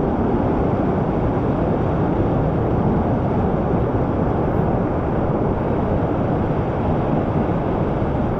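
Steady rushing of whitewater from a river rapid, an even, unbroken noise that is strongest in the low and middle range.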